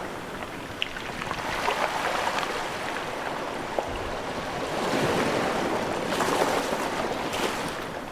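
Sea waves washing in, an even rushing noise that swells twice.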